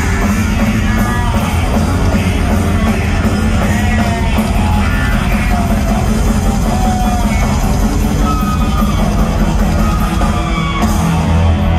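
Rock band playing a loud instrumental jam live, with electric guitar, bass guitar and drum kit, heard from within a large concert crowd, with a heavy low end.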